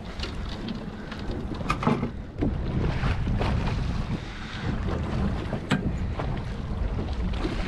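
Wind buffeting the microphone over open-water slapping, with a few sharp splashes as a small hooked mahi mahi thrashes at the surface beside the boat.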